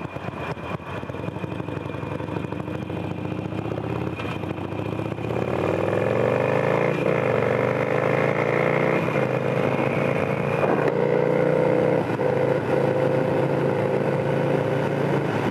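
Harley-Davidson Sportster cafe racer's V-twin engine under way, accelerating: its pitch climbs from about five seconds in and it grows louder, then it holds a steady pitch at cruising speed.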